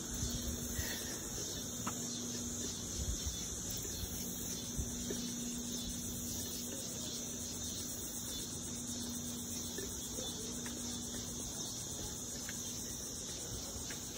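A steady, high-pitched drone of insects calling together in a dense, finely pulsing chorus. A faint low hum runs underneath and stops about ten seconds in.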